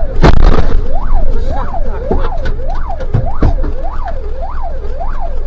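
Electronic siren sweeping rapidly up and down, about two rises a second, over a low vehicle rumble, with a loud bang about a quarter second in.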